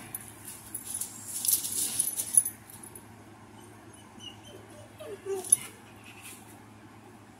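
Dog whimpering briefly with a short, falling whine about five seconds in. Before it comes a burst of rustling.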